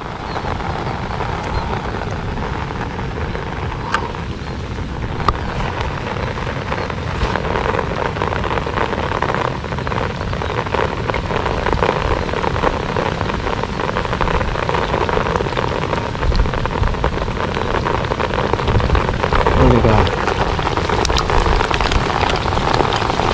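Steady rain falling on shallow marsh water, an even, dense patter with a few sharp ticks of single drops.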